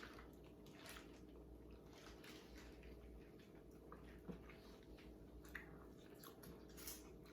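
Faint chewing and wet mouth sounds of someone eating crab, with scattered small clicks and crackles from handling the shells.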